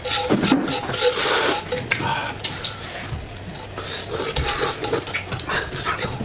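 Close-miked eating sounds: wet chewing and smacking, with many short clicks and occasional clinks of utensils on dishes.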